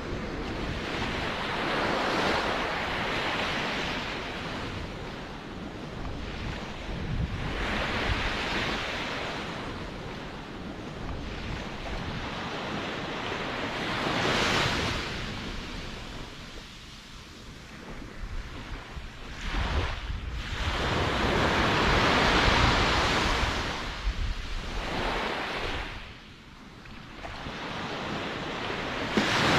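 Ocean surf: waves breaking and washing up a shore, the wash swelling and falling back about every six seconds, over a low rumble of wind on the microphone.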